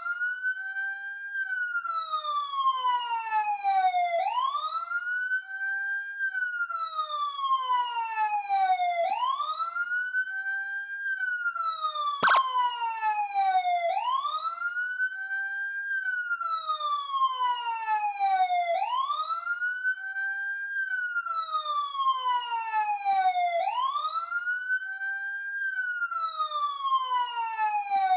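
Electronic police siren sounding a slow wail: each cycle rises quickly, holds briefly at the top, then falls slowly, repeating about every five seconds. A single sharp click cuts in about halfway through.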